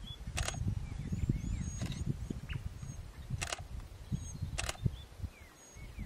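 Small birds chirping in short, high calls, with four sharp clicks a second or so apart, over an uneven low rumble.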